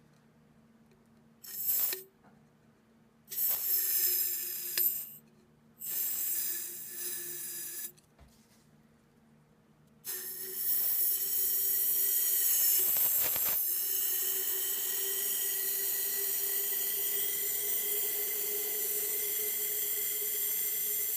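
Butane gas hissing out of a refill canister of premium butane fuel: three short sprays, then a long steady hiss from about ten seconds in, with a faint whistle in it.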